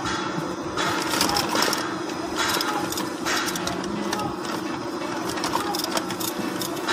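A machine running with a steady hum, overlaid by irregular bursts of rattling noise every second or so.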